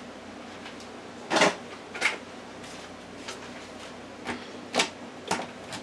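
A handful of short clicks and knocks, about one every half second to a second, the loudest about a second and a half in, as kitchen items are handled on the countertop around a blender.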